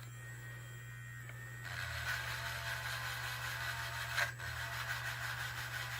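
Small powered sanding tool running against dried modelling putty on a plastic part: a steady grinding that starts about two seconds in, with a brief break a little after four seconds, over a constant low motor hum.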